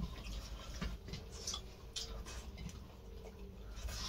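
Faint, irregular small clicks and light clatter of people eating biryani by hand from steel plates.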